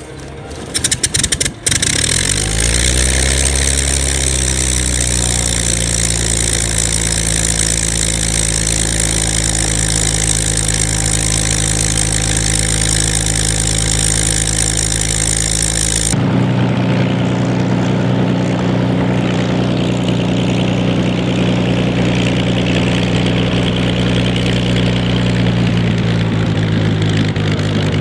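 Bell P-63 Kingcobra's Allison V-1710 V12 engine cold-starting: a few sharp coughs about a second in, then it catches, its pitch rising and settling into a steady idle. About halfway through the sound switches abruptly to a deeper, steady engine note.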